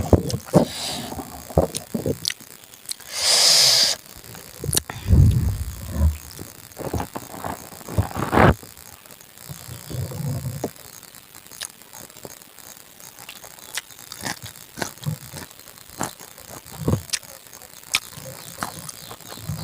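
Close-miked eating sounds: chewing and mouth smacking with scattered clicks and clinks, and a short hissing rush about three seconds in.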